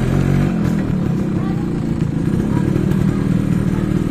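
Suzuki X4 motorcycle engine running under way, heard from the rider's seat, its carburetor freshly cleaned and tuned. A steady note for about the first half second, then a rougher, rapidly pulsing running note.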